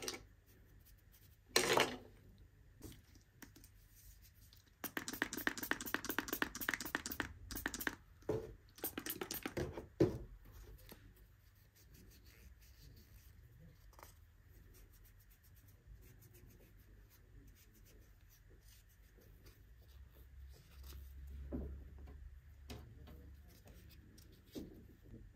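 Close scratching and handling sounds: a short scrape early on, then a run of rapid scratching strokes lasting about three seconds, a few more scrapes, and then only faint small handling noises.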